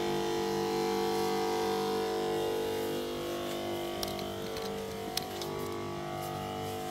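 Electric pump of a backpack insecticide sprayer buzzing steadily, with a couple of faint clicks about two-thirds of the way through.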